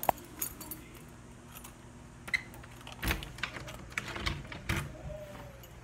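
Handling noise: a run of irregular clicks, knocks and light rattles, with a sharp click just after the start and a busier cluster of clicks and thuds about three to five seconds in, over a faint low hum.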